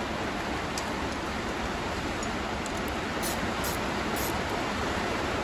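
Steady rain from a passing storm, an even hiss with no pauses, and a few faint metal clicks of an Allen key and wrench on brake-rotor bolts.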